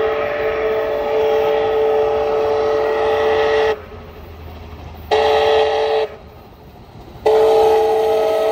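Steam locomotive chime whistle (Canadian Pacific 2816) sounding a steady chord of several notes in long and short blasts. A long blast stops a few seconds in, a short blast of about a second follows, and another long blast starts near the end, fitting the long-long-short-long grade-crossing signal.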